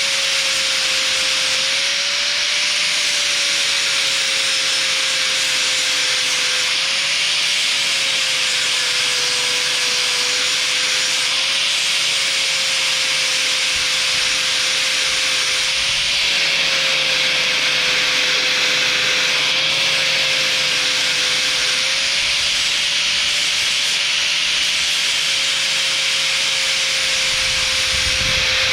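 Angle grinder fitted with a 4.5-inch flap wheel grinding the cutting edge of a steel lawn-mower blade: a steady motor whine that wavers slightly in pitch, over a continuous hiss of the abrasive on the metal.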